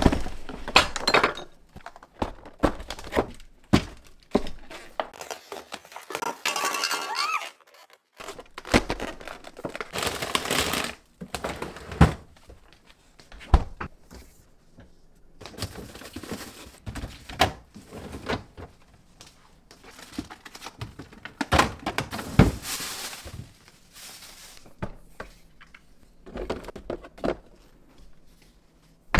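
Kitchen handling sounds: a long run of knocks, clinks and clatter as dishes, pots and utensils are picked up, set down and worked with, with a few longer noisy stretches between.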